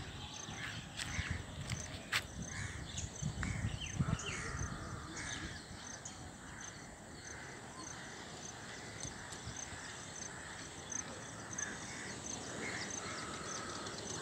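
Outdoor ambience of birds calling, with a high chirp repeating about twice a second. Wind rumbles on the microphone in the first few seconds.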